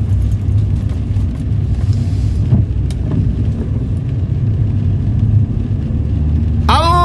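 Steady low rumble of a car's engine and tyres on a wet road, heard from inside the cabin. Just before the end, a sung melody starts suddenly over it.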